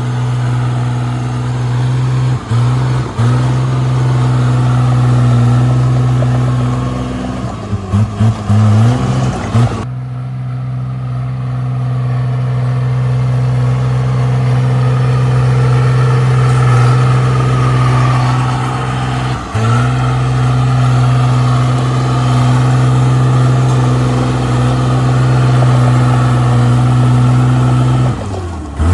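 Komatsu D37P bulldozer's diesel engine running with a steady drone. It dips briefly now and then, wavers for a couple of seconds about eight seconds in, and sags again near the end as the load changes.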